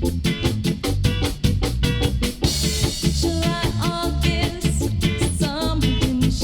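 A rocksteady record playing from vinyl: a quick, steady beat with bass, drums and guitar, a cymbal crash about two and a half seconds in, and a singer's voice coming in just after it.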